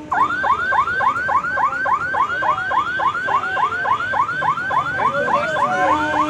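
Electronic warning siren at a railway level crossing, a rapid rising whoop repeated about five times a second. Near the end a train horn sounds under it.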